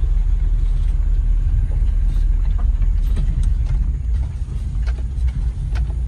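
A moving car heard from inside the cabin: a steady low engine and road rumble, with a few light knocks and rattles.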